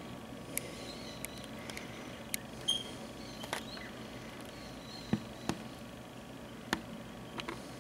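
Plumed whistling ducks giving scattered brief high chirps and twitters, mixed with about a dozen sharp short clicks, over a faint steady background.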